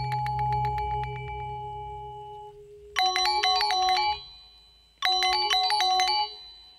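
Electronic intro jingle. A held synth tone with a fast ticking pulse fades out over the first few seconds. Then a short, bright chiming melody of quick notes plays twice, about two seconds apart.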